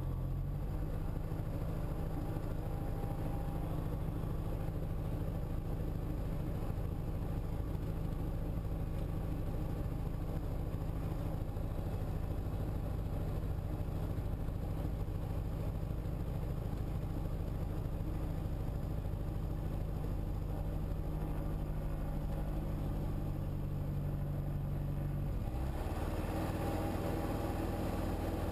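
Piston engine and propeller of a single-engine Diamond light aircraft, heard from inside the cockpit, running steadily at low power while lining up on the runway. About 25 seconds in the engine note changes and more hiss comes in, as power is added for the takeoff roll.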